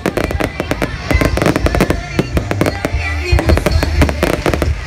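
Aerial fireworks display: a rapid, continuous volley of bangs and crackles.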